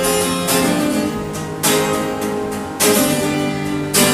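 Acoustic guitar with a capo on, strummed chords ringing out between sung lines: a strong strum a little over once a second, each chord left to sustain.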